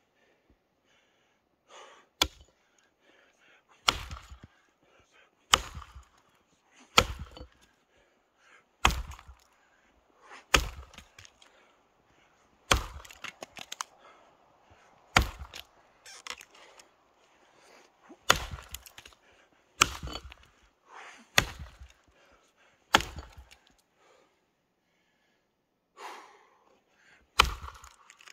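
Tuatahi work axe chopping into an old, semi-dry, partly frozen sugar maple log: about a dozen sharp blows, one every second and a half to two seconds, some followed by a brief crackle of wood. The blows pause for a few seconds near the end, then one more lands.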